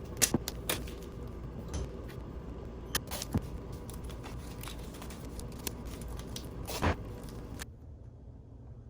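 Scattered sharp clinks and knocks, like metal parts being handled and set down, over a steady low hum. The sound cuts off abruptly near the end.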